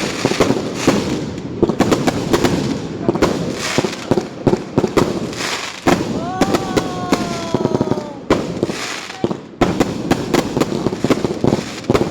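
Fireworks and firecrackers going off in a dense, unbroken run of cracks and bangs, with a whistle that slowly falls in pitch about six seconds in.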